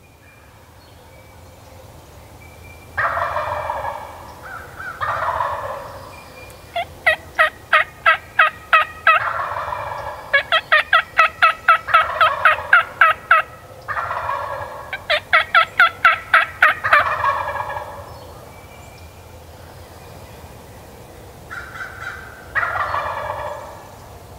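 Wild turkey gobbler gobbling loudly, about a second each time, half a dozen times, with long runs of sharp, evenly spaced turkey yelps at about four notes a second between the gobbles.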